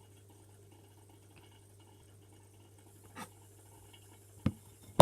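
Low steady room hum with faint handling noises, then a sharp knock near the end and a second, louder one right at the end.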